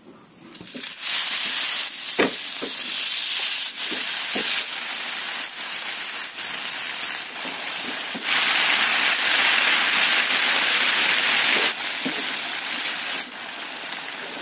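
Chili-tomato sauce and eggplant frying in oil in a nonstick pan: a steady, loud sizzle that changes level abruptly several times. A few light knocks of a wooden spatula against the pan come through it.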